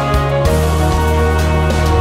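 Background soundtrack music: sustained chords over a deep bass note that changes about half a second in.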